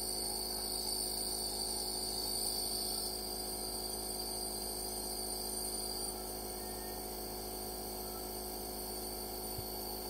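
Compressor nebulizer running: a steady electric motor hum with a thin high-pitched whine over it.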